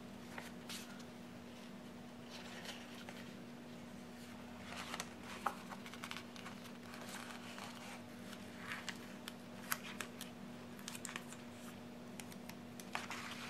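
Paper rustling and crinkling with scattered small clicks and ticks: a sticker book's sheet and backing paper being handled and stickers peeled off.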